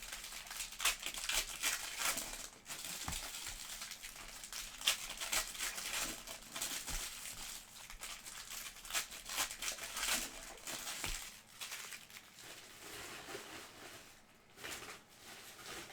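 Foil trading-card pack wrappers crinkling and tearing as packs are opened and handled, in a dense, irregular crackle that thins out over the last few seconds.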